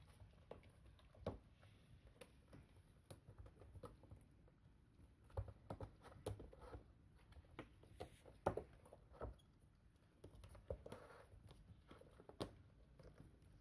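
Kittens' paws and claws scrabbling on a corrugated cardboard scratcher and loose foam mat pieces: faint, scattered light taps and scratches, with a few sharper knocks near the middle.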